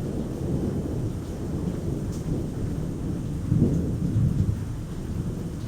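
Thunder rumbling through steady rain, swelling louder about three and a half seconds in.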